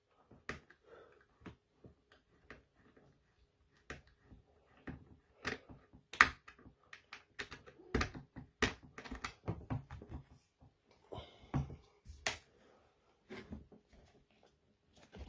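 Irregular sharp clicks and light knocks of hands tightening a nut and bolt on a seat box frame bracket, metal fittings tapping against the plastic box. The clicks come unevenly, with a couple of louder ones about six and twelve seconds in.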